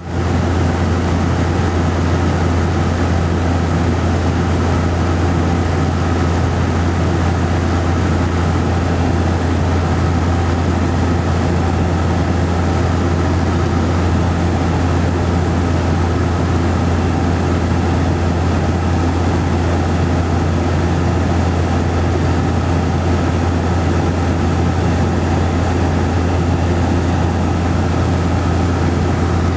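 Inside the cabin of a Cessna 208B Grand Caravan in level cruise: the single PT6A turboprop and its propeller make a strong, steady low hum, with a constant rush of engine and airflow noise over it.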